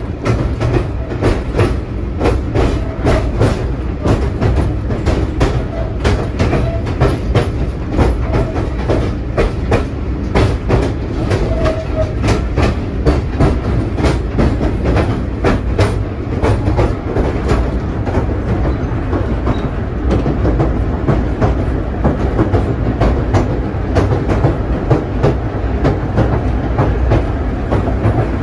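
Wooden carriage of the Hythe Pier Railway's third-rail electric train rolling along the pier track: a steady low rumble with the wheels clicking over rail joints, the clicks coming thick and fast in the first half and thinning out later.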